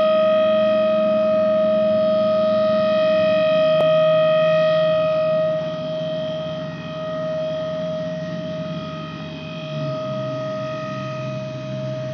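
Open-pit mine's shift-change siren sounding one steady, held tone with strong overtones. It becomes noticeably quieter about halfway through and keeps sounding, over a lower drone that drops in pitch twice.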